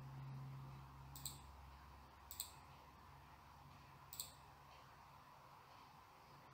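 Three computer mouse clicks, short and sharp, each a second or two apart, over a faint low hum.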